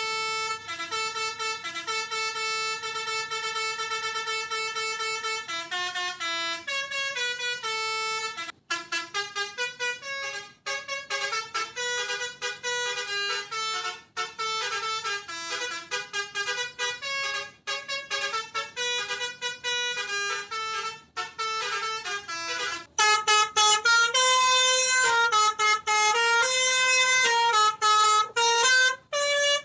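Telolet basuri multi-tone horn playing a melody: a string of reedy pitched notes, some held for a few seconds and others changing quickly with short breaks between them. About 23 s in it gets louder and brighter.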